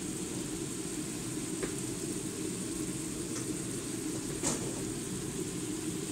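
Pepper-stuffed beef rolls frying in their juices in a non-stick pan: a steady sizzle with a few pops of spitting fat, over a steady low hum.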